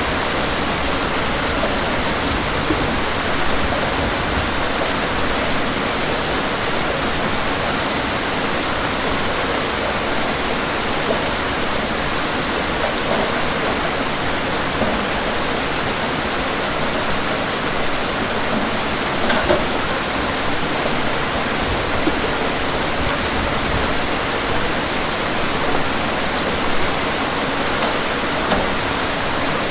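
Steady heavy rain, an even hiss with a few louder drops or splashes here and there.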